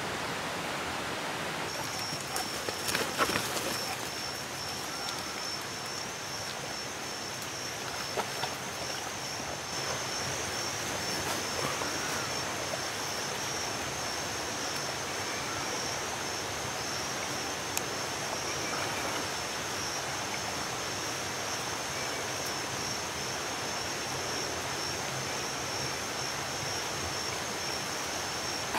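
Outdoor ambience of running water from a spring-fed stream, a steady rushing hiss. About two seconds in, a steady high-pitched insect drone starts and holds, with a few faint clicks around it.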